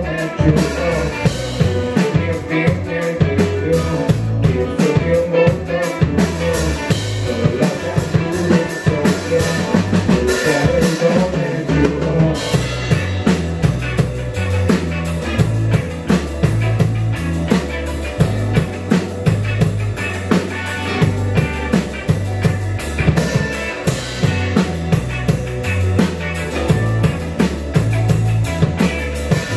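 A rock band playing live: two electric guitars, an electric bass and a drum kit in an instrumental passage, with a steady drum beat and no singing.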